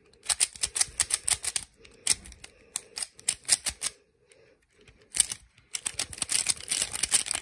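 Yulong V2 Magnetic 3x3 speed cube turned fast by hand: rapid runs of plastic clicking as its layers turn, in several short bursts, a pause near the middle, then a longer, denser run near the end. The cube has loosened up and turns freely.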